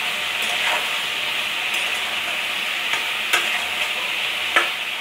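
Diced ridge gourd sizzling in oil in a metal kadai while being stirred with a metal spatula. The spatula scrapes and knocks against the pan a few times, most sharply about three and a half seconds in and near the end.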